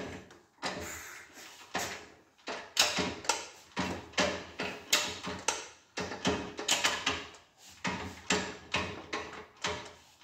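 Gearbox of a Ducati Scrambler 350 being clicked through its gears with the newly fitted gear-change lever: a run of metallic clicks and clunks, several a second, each ringing briefly.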